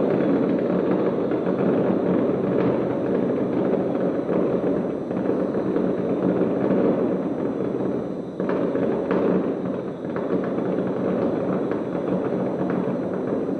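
Fireworks barrage heard from about 1.3 km away: rapid bangs and crackles run together into a continuous rumble, easing briefly about eight seconds in.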